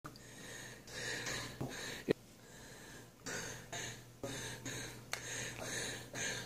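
A man's heavy breathing close to the microphone: a run of short breathy huffs, roughly two a second, with a sharp click about two seconds in.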